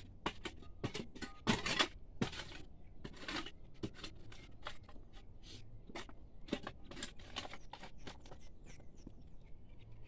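Hand digging in stony soil: a metal digging tool scraping into the earth and knocking against stones in irregular strokes, with soil and small stones rattling.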